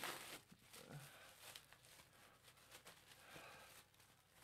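Faint crinkling and rustling of plastic shrink wrap being peeled and pulled off a vinyl record sleeve, a little louder at the very start.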